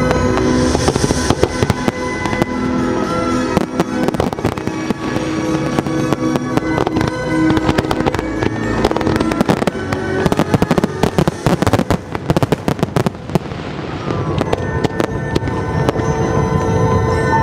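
Fireworks going off in rapid succession, a dense run of bangs and crackles that is thickest in the middle, with music playing under them.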